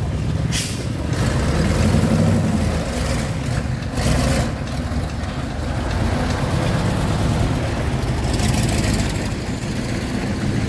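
Truck engine running at low revs with a steady low drone, with short bursts of hiss about half a second in and about four seconds in, and a longer hiss near the end.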